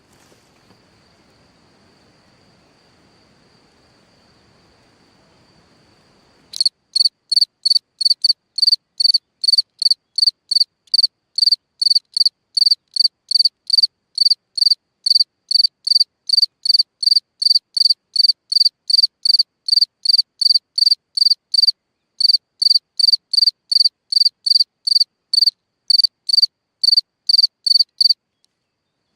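Black ground-dwelling cricket singing: loud, high-pitched chirps repeated evenly about twice a second, starting about a quarter of the way in, with one brief pause and a stop shortly before the end. This is the male's calling song, made by rubbing its wings together. Before the chirping starts there is only a faint, steady high trill.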